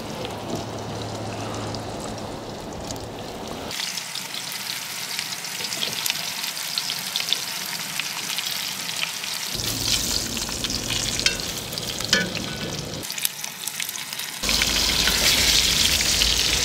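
Flour-dredged beef shanks sizzling and crackling as they brown in hot oil in a cast-iron Dutch oven. The sound changes abruptly a few times and is loudest near the end.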